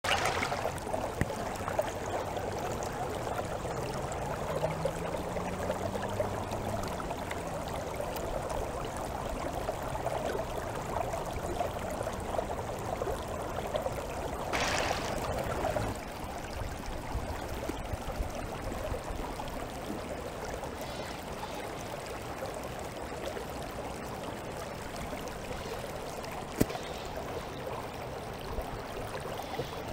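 Shallow stream water running steadily around a small floating model boat, with a brief louder rush about halfway through and one sharp click near the end.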